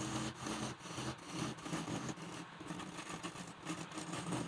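Woodturning lathe running with a steady motor hum, a tool cutting and scraping at the spinning wood over it; the sound drops away abruptly near the end.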